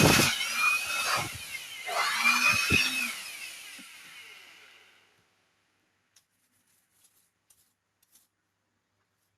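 Air blower blasting dust out of an HP laptop in two surges with a whining pitch that rises and falls, dying away about five seconds in, followed by a few faint clicks.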